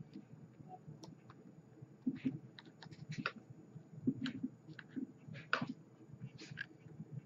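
Irregular small clicks and scratches as 22-gauge nichrome coil wire is handled and seated in the posts of a copper Plume Veil rebuildable atomizer.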